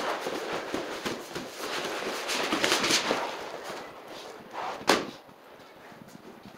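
Vinyl sheet flooring being unrolled, lifted and dragged across the floor: rustling and scraping for about three seconds, then a single sharp thump about five seconds in.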